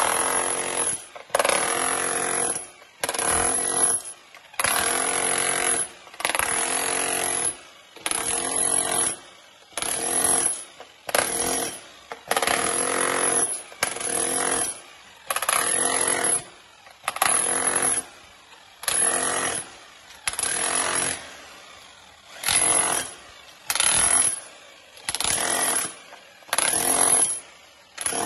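Hand-held demolition hammer with a chisel bit chipping through ceramic floor tile and the floor beneath. It runs in short bursts of about a second, over and over, with brief pauses between.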